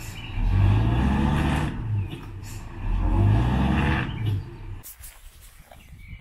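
Truck engine revving hard twice, each burst lasting about a second and a half, as the two-wheel-drive camper truck tries to pull out of deep mud. It is stuck, its wheels slipping.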